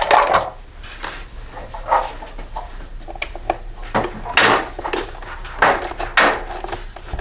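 Metal tools and mower parts clinking and clattering, with a few short scraping rasps, as a push mower's rear wheel is worked off.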